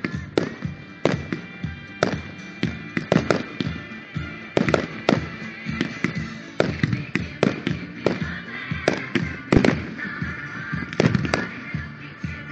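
Aerial firework shells bursting in a rapid, irregular string of bangs, about two or three a second, over disco music.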